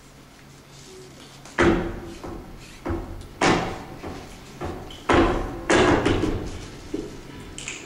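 Flamenco dancer's heeled shoes stamping on a wooden stage floor: single heavy accented stamps, about six of them unevenly spaced, each ringing out in the hall, after a quiet first second and a half.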